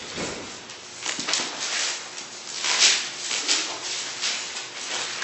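Bible pages being turned: paper rustling in short hissy bursts, the loudest about three seconds in.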